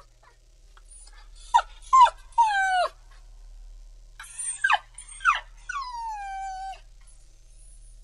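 Pitbull puppy crying: high-pitched whines and yelps in two groups of three, each cry sliding down in pitch, the last one long and drawn out.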